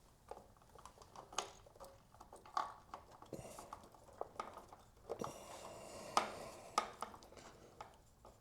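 Scattered light metal clicks and taps of a bolt and tools being handled while trying to line up and thread a headlight guard's mounting bolt, with some soft rustling in the middle.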